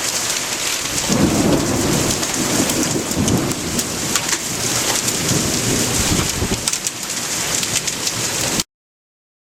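Heavy thunderstorm rain pouring down, with a long rumble of thunder rolling in about a second in and dying away over several seconds; the sound cuts off suddenly near the end.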